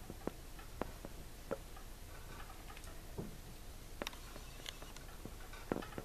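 About ten small, sharp clicks and ticks at uneven intervals from a budgie's beak as it nibbles and preens, the loudest near the end.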